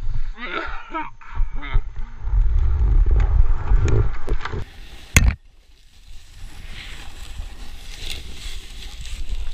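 Snowboard sliding over snow with wind buffeting the GoPro's microphone: a heavy rumble for the first few seconds, then a sharp knock about five seconds in. After the knock it drops to a quieter steady hiss of the board on snow.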